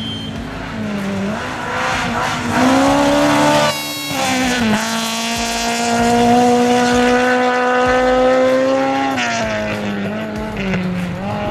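Rally car engine pulling hard through the gears: the revs climb, break at an upshift about four seconds in, then hold high and nearly steady for several seconds before dropping off near the end.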